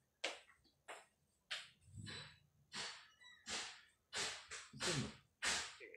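A man's short, breathy puffs of breath, one or two a second, a few with a faint voiced hum that falls in pitch.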